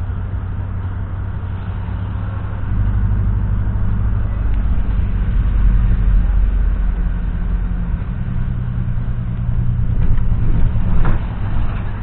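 Car engine and road noise heard from inside the cabin while driving, a steady low hum that grows louder a few seconds in. Near the end there are a few short knocks.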